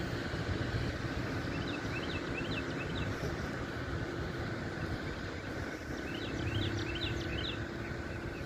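A bird chirping in two quick runs of short, rising notes, over a steady low outdoor rumble and a faint steady hum.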